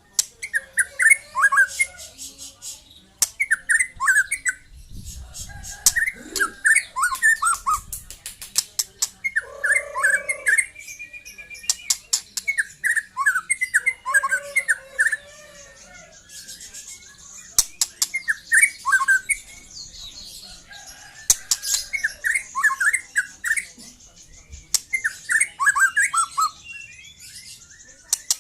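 Young white-rumped shama (murai batu) singing: short, repeated phrases of quick whistled notes sliding up and down, mixed with sharp clicks and the odd lower note.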